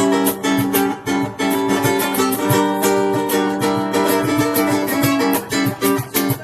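Ukuleles strumming chords in a steady rhythm, with no singing.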